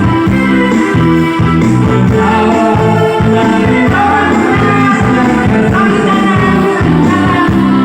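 Loud recorded music with a singing voice and a strong, steady bass line, played through a sound system being tested.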